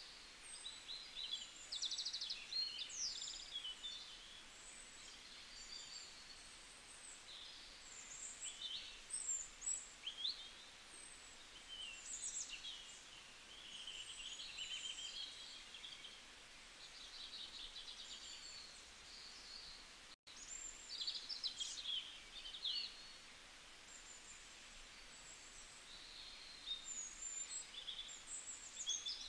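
Several birds chirping and calling in short, irregular phrases over a faint steady hiss, with the sound cutting out for an instant about twenty seconds in.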